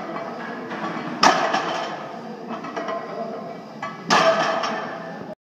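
A loaded barbell with iron plates clanks down onto a wooden deadlift platform twice during speed deadlift reps, about three seconds apart. Each touchdown is a sharp metallic hit, with the plates ringing and rattling for about a second after. The sound cuts off abruptly near the end.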